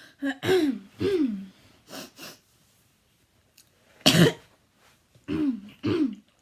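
A child's repeated habit cough: short, voiced coughs in pairs, each falling in pitch, with a sharper, louder cough about four seconds in. The cough is a chronic habit cough, a somatic cough tic.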